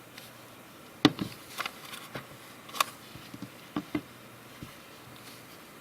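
A string of about a dozen small, sharp clicks at an irregular pace from pressing the phone's buttons while navigating the recovery menu. The loudest comes about a second in, and the clicks stop a little over a second before the end.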